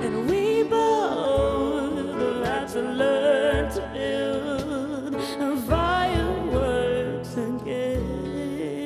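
A song performed live: singing over a Bösendorfer grand piano and an acoustic guitar, with repeated low piano notes under the voice.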